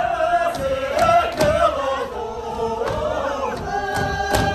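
A group of voices singing or chanting together in long held notes that slide from pitch to pitch, with a few sharp knocks in between.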